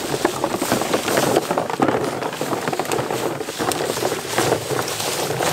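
Busy, irregular rustling and crackling of people walking through brush and shallow water.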